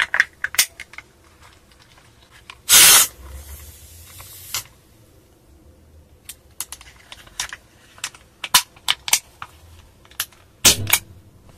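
CO2 air pistol being handled at the grip and cartridge: a few clicks, then a short loud burst of hissing gas about three seconds in that tails off over the next second and a half. A run of sharp plastic and metal clicks follows, with a louder double click near the end.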